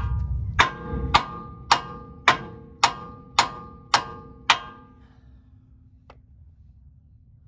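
Sledgehammer striking the steel steering knuckle arm of a Toyota Land Cruiser 80 Series at the tie rod end: about nine ringing metal-on-metal blows, roughly two a second, stopping about four and a half seconds in. It is hammering to shock loose a tie rod end stuck in the knuckle.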